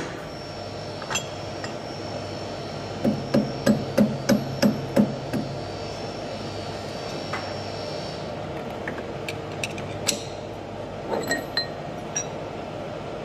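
About eight evenly spaced hammer blows, two to three a second, knocking a steel fixture jig loose from its seat on a metal lathe, a tight fit because the parts have warmed up. A few light metal clinks follow near the end.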